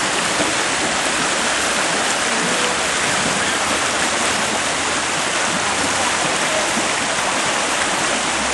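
Whitewater river rapids rushing steadily, a loud, even roar of water.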